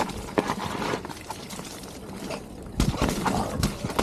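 Mountain bike descending a wet, muddy trail: tyres running through water and mud, with repeated knocks and rattles of the bike over rough ground, heaviest about three seconds in.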